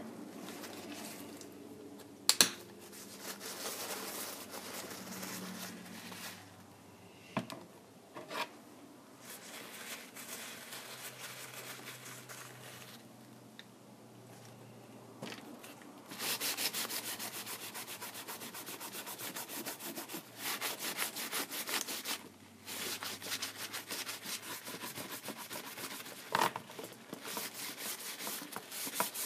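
A hand tool scraping and rubbing against a Kindle Fire tablet's frame, with a sharp click a couple of seconds in. About halfway through, the scraping turns into faster, louder, rapid strokes.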